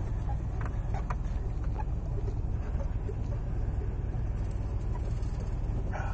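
Brush fire truck's engine running as the truck drives, a steady low rumble heard from inside the cab, with scattered small clicks and rattles.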